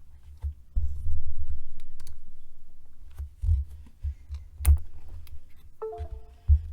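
Typing on a custom Akko MOD007 mechanical keyboard with lubed JWK black linear switches, ASA keycaps and foam and tape mods. The keystrokes come irregularly, each a sharp click with a deep low thud.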